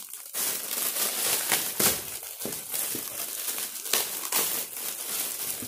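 Shiny plastic gift wrapping being crinkled and pulled open by hand, a steady rustle full of sharp crackles.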